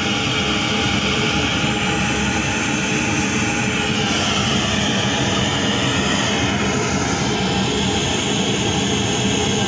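Pink noise test signal played loud and steady through a PA sound system's speakers: a constant, even hiss across all pitches. It is the signal used to check the equalized system's frequency response on a phone RTA app.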